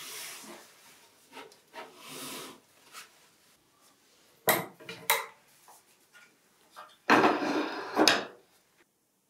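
A wooden drop-leaf desk wing being handled and swung up: light rubbing and shuffling at first, two sharp knocks about four and a half seconds in, then a second of wood rubbing ending in a knock as the leaf comes up near the end.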